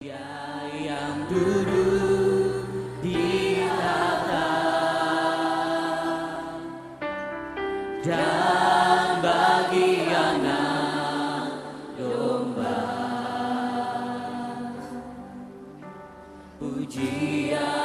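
Live praise-and-worship music: sustained chords with voices singing, swelling and easing, and softer shortly before the end.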